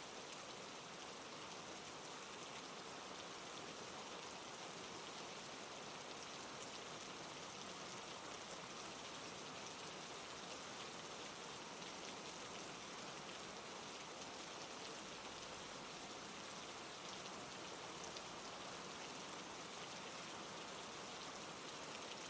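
Steady rain falling, a dense, even hiss of many small drops, with no thunder.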